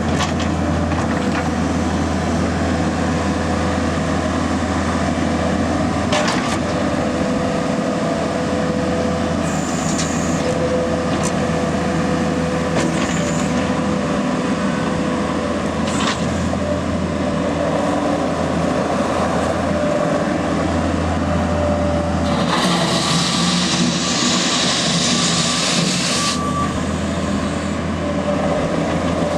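Case SV280 skid steer's diesel engine idling steadily, with a few sharp clicks and a stretch of hiss lasting a few seconds, about two-thirds of the way through.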